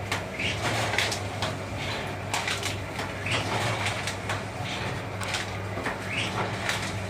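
Full-automatic double-die paper plate making machine running: a steady electric hum under repeated clacks and knocks as its two dies press out plates.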